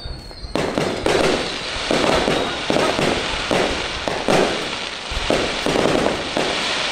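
Aerial fireworks display: a rapid barrage of shells and comets launching and bursting overhead. After a brief lull at the start, dense bangs and crackling follow one another several times a second.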